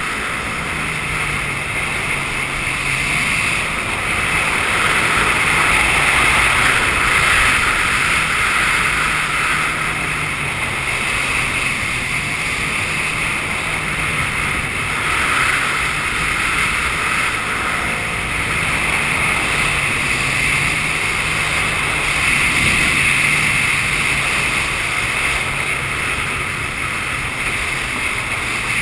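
Jet ski engine running at speed, its note shifting a little up and down with the throttle, over the steady rush of water and wind on the microphone.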